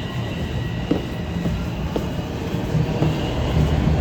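Toronto subway train running in the station: a steady low rumble with scattered light clicks.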